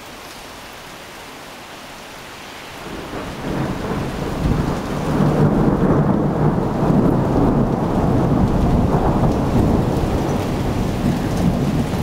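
Steady rain hiss, then about three seconds in thunder builds into a long, loud rolling rumble that keeps going.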